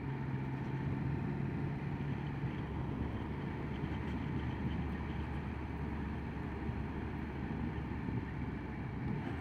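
Triumph motorcycle engine running steadily while riding, with wind rush, heard from a microphone inside the rider's helmet: a steady drone.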